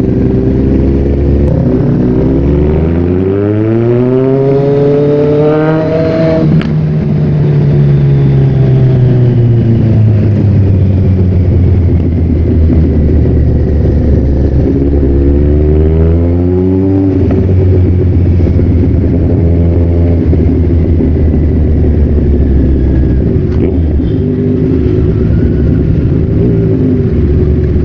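Kawasaki Z1000's inline-four engine under way: revs climb for a few seconds, drop sharply at a gear change about six seconds in, then hold at a steady cruise. The revs rise again briefly around the middle before settling to a steady run.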